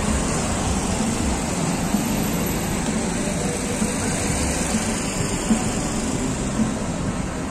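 Steady city street noise from passing road traffic.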